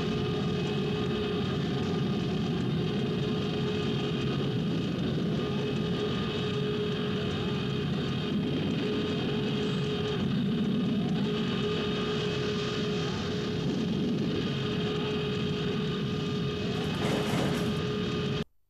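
Horror soundtrack drone: a dense, steady droning noise with a held mid-pitched tone and short rising sweeps about once a second. It swells into a brighter hiss near the end, then cuts off abruptly.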